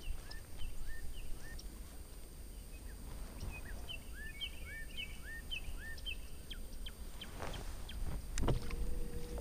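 A bird calling repeatedly: a run of short rising chirps, a few a second, for about six seconds, over a low steady rumble, with one sharp click near the end.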